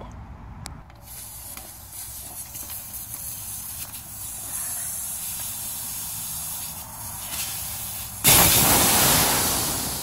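Air hissing out of a motorcycle rear tire through its valve stem as the tire is deflated. About eight seconds in the hiss jumps to a much louder rush of air, which then fades as the tire empties.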